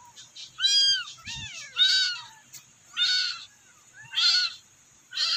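Very young kittens meowing repeatedly, about one high-pitched cry a second, each rising and falling in pitch: the calls of kittens crying for their mother.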